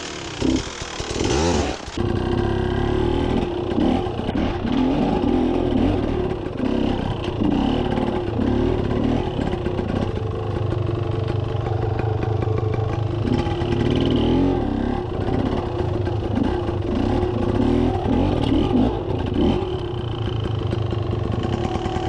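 Beta enduro dirt bike engine running close by, the throttle rising and falling unevenly as it works at low speed. A rougher, clattering stretch comes in the first two seconds.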